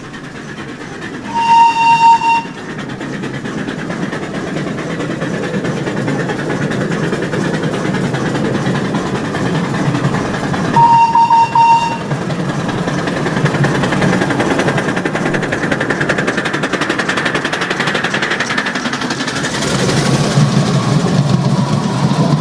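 Miniature live-steam locomotive on a garden railway sounding its whistle twice, two short high calls about nine seconds apart. Between and after them its running noise of exhaust and wheels on the rails grows steadily louder as it approaches, loudest near the end as it passes close by.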